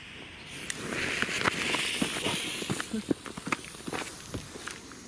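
A cube firecracker's fuse hissing as it burns after being lit with a jet-flame lighter, with footsteps crunching on gravel.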